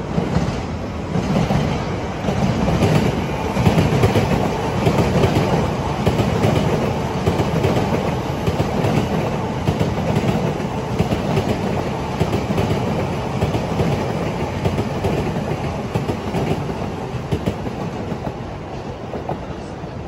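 Electric passenger trains, among them a JR Narita Express, running past on the tracks: a steady rumble of wheels on rail with repeated clickety-clack over the rail joints. It is loudest in the first few seconds and eases off towards the end.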